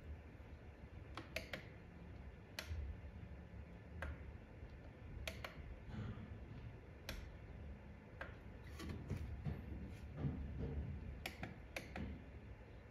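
Push buttons on an automatic chicken coop door's control panel clicking as they are pressed, about a dozen single and paired clicks at irregular intervals over a faint low rumble.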